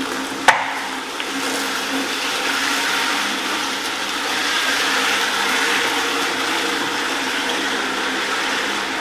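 A steel-framed workbench on furniture sliders being pushed across a concrete floor: a continuous scraping grind, with a sharp knock about half a second in.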